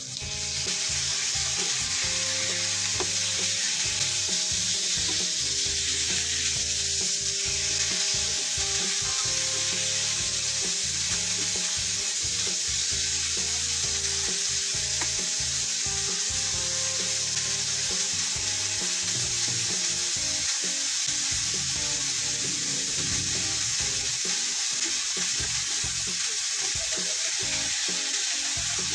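Sliced raw pork going into a hot nonstick frying pan of onion and garlic: the sizzle jumps up sharply as the meat lands, then keeps up a steady loud sizzle while a spatula stirs the pork around the pan.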